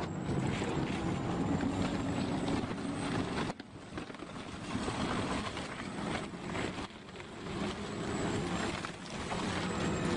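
Motor vehicle engine running steadily, cutting off abruptly about three and a half seconds in and then building back up.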